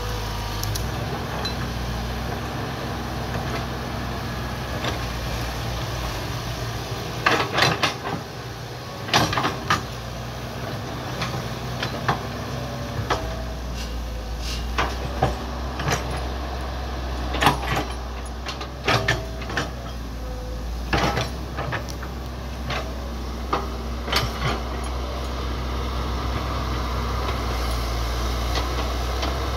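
Hitachi hydraulic excavator's diesel engine running steadily as the machine works, with clusters of sharp clanks and knocks from about a quarter of the way in until about three-quarters through.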